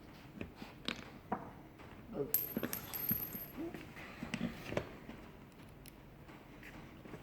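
Small metal chair hardware (screws, bolts, washers) clinking and being handled during chair assembly: irregular clicks and knocks, busiest in the middle, with a brief thin high-pitched tone about two seconds in.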